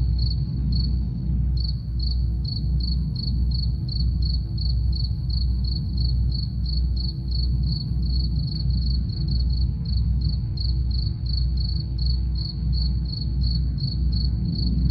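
Cricket chirping steadily, about three short chirps a second, over a deep, soft drum beat pulsing about twice a second.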